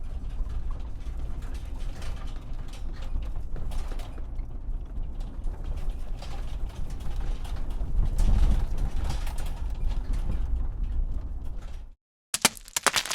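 Plastic toy bulldozer being pushed along a surface: its treads and wheels make a steady clicking rattle over a low rumble. The sound is loudest about eight seconds in and stops abruptly near the end.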